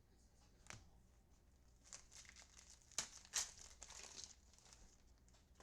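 Faint crinkling and rustling of a trading-card pack wrapper and cards being handled: a few short crackles, the loudest about three seconds in.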